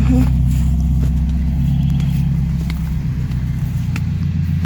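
Car engine idling steadily, its low note shifting slightly about three seconds in.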